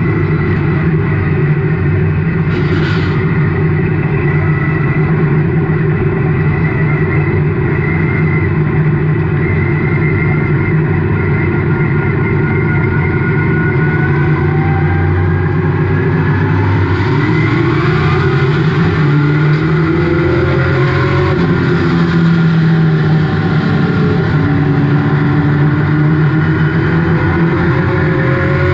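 Race car engine heard from inside the cockpit, running loudly and steadily; past the halfway mark its pitch rises and falls repeatedly as the revs change.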